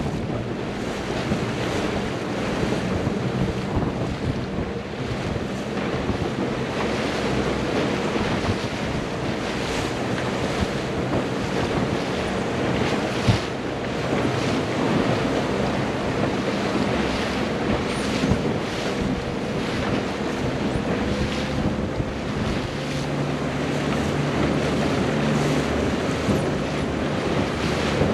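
Wind buffeting the microphone over the rush and splash of choppy lake water, with a steady motorboat engine hum underneath. There is a single sharp knock about halfway through.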